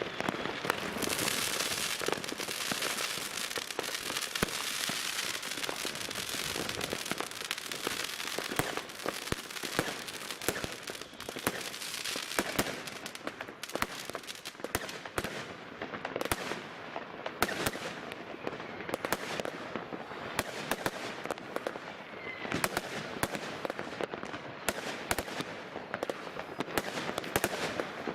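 Fireworks going off: a dense crackling hiss for the first several seconds, then a steady string of many separate sharp bangs and pops.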